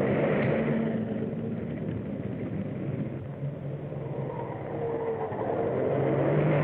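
Motor car engine running steadily on an old, narrow-band film soundtrack; its drone shifts in pitch a few times.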